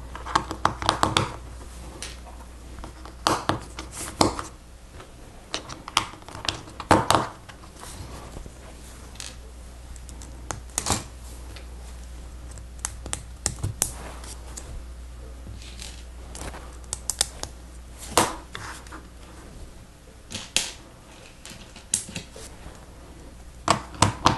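Lego Technic plastic parts clicking and snapping together as they are handled and fitted, in irregular sharp clicks and short clusters of clicks.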